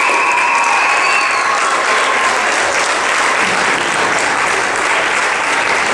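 Large theatre audience applauding steadily, with a few held high-pitched calls over the clapping in the first two seconds.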